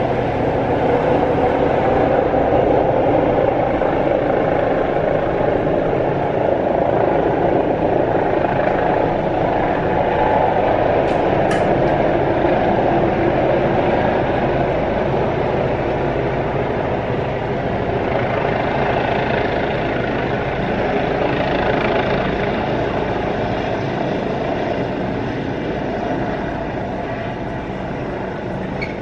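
Helicopter coming in to land close by: a steady, loud rotor and engine din that grows a little quieter over the last several seconds.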